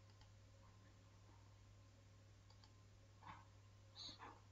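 Near silence: a low steady hum with a few faint clicks near the end.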